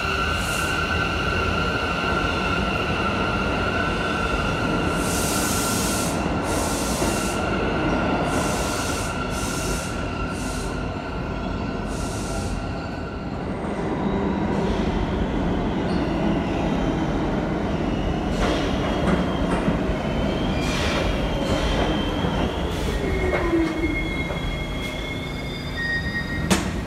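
A New York City subway train pulling out with a steady high whine. Then an arriving A train runs in and slows to a stop, its wheels squealing, in a tiled underground station.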